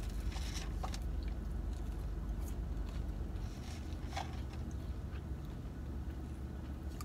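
Faint chewing and mouth sounds from people eating a burger and fries, with a few small clicks and paper rustles, over a steady low hum inside a car.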